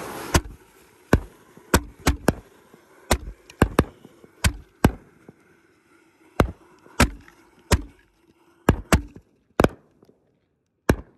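A barrage of firework canister shells going off: a string of sharp bangs at irregular intervals, about seventeen in all, thinning out near the end.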